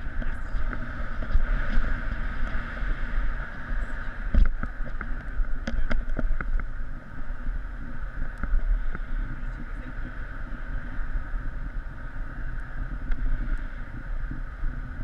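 Airflow of a paraglider in flight buffeting a camera microphone: a steady, gusting low rumble with a hissing band above it. A few sharp clicks come about four to six seconds in.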